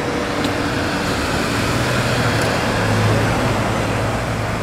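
Compact sedan driving slowly past close by, its engine's low hum growing louder and peaking about three seconds in.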